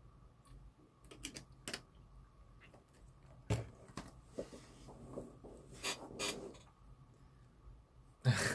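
Quiet handling sounds: a few soft clicks, then a thump about three and a half seconds in as a drinking glass is set down on a desk, followed by faint rustling and a short burst of noise near the end.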